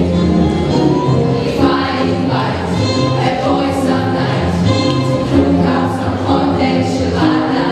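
A group of girls singing a song together with instrumental accompaniment, over a steady moving bass line.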